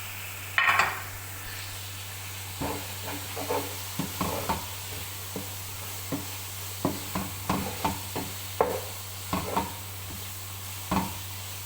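A spoon stirring cooked chicken pieces into a sizzling tomato and capsicum sauce in a pan, with a faint steady sizzle beneath. A louder scrape comes just over half a second in, then short, irregular scrapes and knocks against the pan, a few a second.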